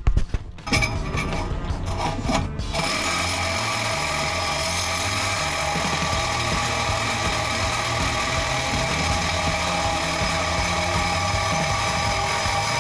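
A few metallic clanks and knocks, then from about three seconds in a power tool running steadily, working on the old exhaust pipe under the pickup.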